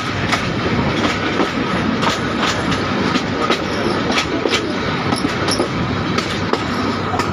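Passenger train running at speed, heard from on board: a steady rumble of wheels on rails with sharp clickety-clack strikes about twice a second as the wheels pass over rail joints.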